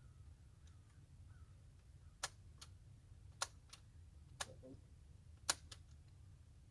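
Shells being loaded into the magazine of a Tokarev 12-gauge bullpup shotgun: sharp metallic clicks, mostly in quick pairs, about once a second.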